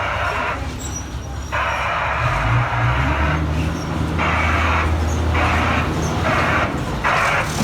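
Botchan Ressha train's diesel locomotive idling with a low steady hum, with repeated sharp-edged bursts of hissing, each starting and stopping abruptly.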